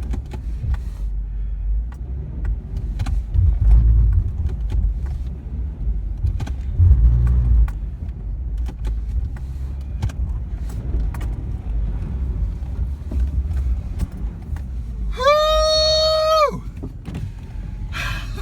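A car's engine running with a low rumble, with scattered light clicks and crunches. About fifteen seconds in, a horn sounds once for about a second and a half.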